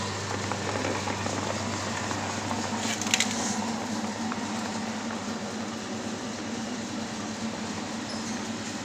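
Electric-motor-driven horizontal pellet mill running with a steady mechanical hum and whir, with a brief clatter about three seconds in.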